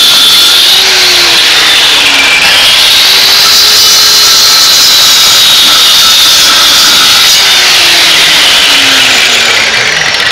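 Angle grinder with a cutting disc cutting into concrete blocks at the base of a block wall, running loud and steady with a high whine. The whine sags in pitch about two seconds in as the disc bites into the block under load, then recovers.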